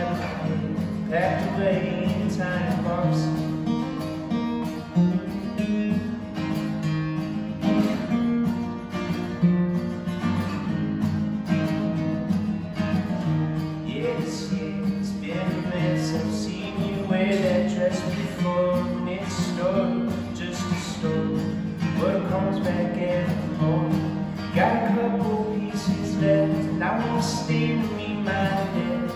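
Acoustic guitar strummed steadily, accompanying a man singing a country-style song.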